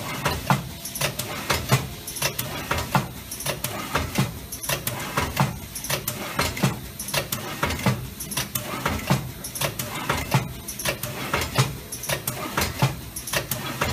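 Combimat CM-L4S four-head linear weigher and its bagging machine running, dosing sand into 10 g packs at 48 a minute. Many quick clicks and clacks from the machine's moving parts ring out several times a second over a steady mechanical noise.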